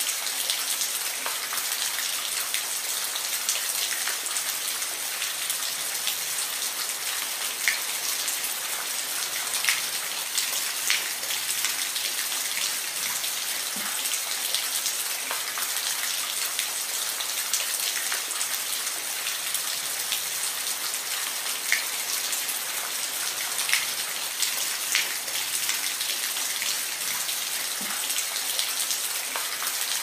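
Steady rain falling: an even hiss with scattered sharper ticks of single drops striking a surface.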